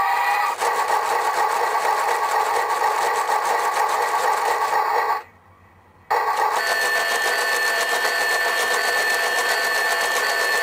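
Generic electronic sound chip in a cheap G-scale toy steam locomotive playing its train sound effects through a small speaker: a fast rhythmic noise that stops for about a second around halfway, then starts again with a steady high tone held over it.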